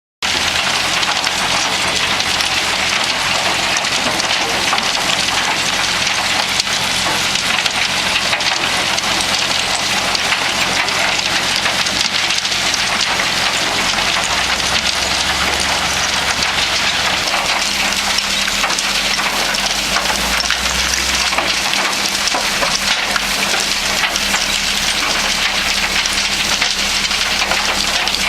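Trommel drum screen running on mixed demolition waste: a dense, continuous crackle and rattle of debris tumbling through the rotating screen drum, over a steady low machine hum. The hum shifts in pitch about halfway through.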